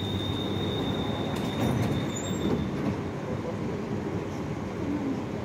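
EP2D electric train standing at the platform with a steady low hum from its running equipment, while its doors slide shut. A thin, high, steady warning tone sounds with the closing and stops about three seconds in.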